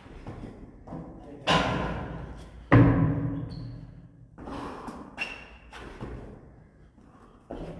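Heavy thuds of a CrossFit burpee box jump-over workout: bodies dropping onto rubber gym flooring and feet landing on a wooden plyo box. Two loud thuds come about 1.5 and 2.7 s in, each ringing briefly in the room, with softer knocks a few seconds later.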